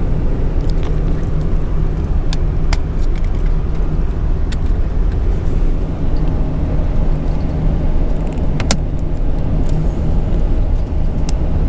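Steady road and engine rumble inside a moving car's cabin, with a few sharp, light clicks scattered through it.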